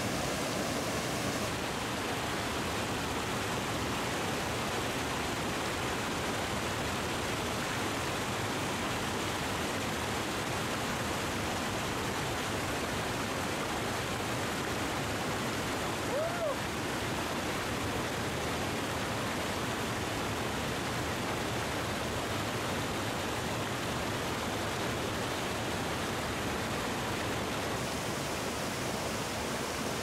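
Steady rush of water pouring over a small waterfall and running through a shallow rocky river, with one brief call about halfway through.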